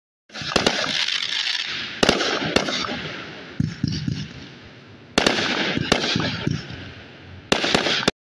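Aerial fireworks shells bursting overhead: a string of sharp bangs, several in quick pairs, each followed by a hissing crackle that fades over about a second.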